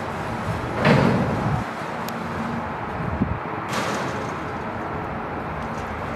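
Vehicle elevator's door opening, with a loud clunk about a second in and another sharp knock near four seconds, over a steady rumble.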